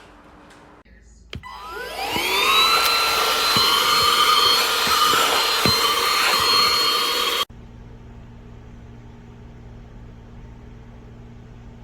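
eufy HomeVac H11 cordless handheld vacuum switched on with a click, its motor whine rising in pitch as it spins up and then running steadily and loud. It cuts off suddenly about seven and a half seconds in, leaving a faint steady hum.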